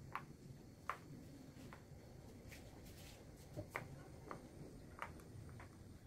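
Silicone Pop It fidget toy bubbles pressed one at a time by a small child's finger: faint, irregular soft pops, about ten over the few seconds.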